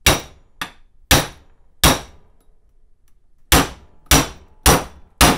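Steel pipe pounded down onto the inner race of a tapered roller steering stem bearing, driving it onto the stem: about eight sharp metallic clangs, each ringing briefly, in two groups with a pause around the middle. The last hits sound solid as the bearing seats fully on the stem.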